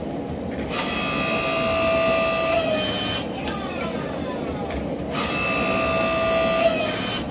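Homemade forging press built from a 5-ton mini log splitter, its motor and hydraulic pump running in two bursts of about two seconds each while squeezing a red-hot steel bar. Each burst is a steady whine that drops in pitch as it stops, over a constant rushing background.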